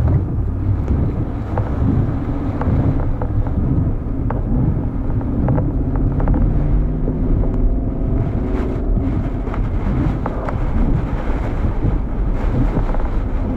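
Strong wind and road noise in a moving car, a steady low rumble with a faint engine or tyre hum and a few scattered sharp ticks.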